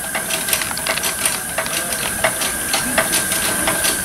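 Miniature live-steam locomotive hissing steadily with a faint thin whistle-like tone, while irregular light metallic clicks and taps come from hands working on it, two to four a second.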